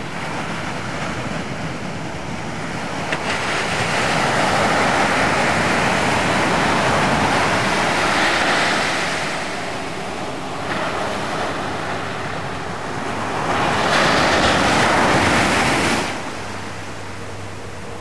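Ocean surf rolling in, a steady wash that swells louder twice as waves break, with wind on the microphone. The sound drops off suddenly about two seconds before the end.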